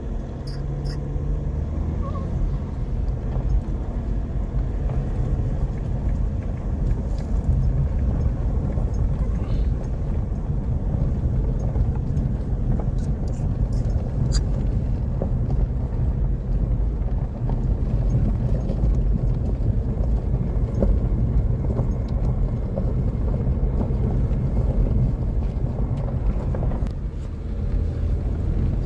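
Vehicle driving along a rough mountain track: a steady low rumble with scattered small knocks and rattles.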